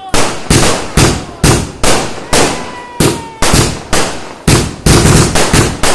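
Multi-shot aerial firework cake (a 'sky shot') firing in rapid succession: a steady train of loud bangs, about two to three a second, coming faster together near the end, with a faint whistle from a rising shell partway through.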